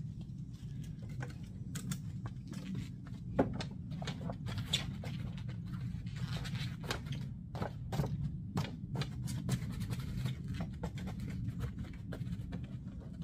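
Quilted insulated window panel being pressed onto a van's rear door: fabric rustling and brushing, with a run of irregular soft clicks and taps as its magnetic edge strips catch on the door. A steady low rumble runs underneath.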